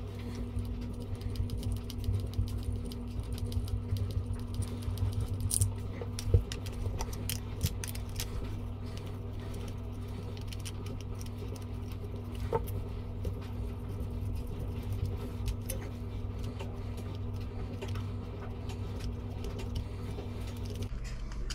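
Scattered small metallic clicks and rattles of a wrench and screwdriver working on an outboard carburetor, as the two 8 mm fasteners holding the plastic primer-assembly cover are undone and the parts are handled. A steady low hum runs underneath and stops just before the end.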